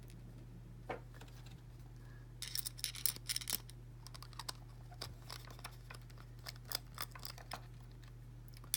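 Irregular small metallic clicks and scrapes as a small screw is worked against the cap of an Ace padlock, with a busy cluster about a third of the way in; the screw is not yet catching the threads.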